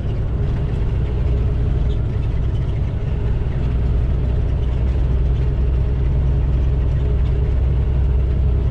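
Semi truck's diesel engine and road noise heard inside the cab while cruising on the highway: a steady low drone that holds even throughout.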